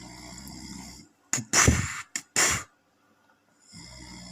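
A man snoring: two low rattling inhalations about a second long each, one at the start and one near the end. Between them come four loud, sharp mouth-percussion beatbox sounds, the loudest sounds here.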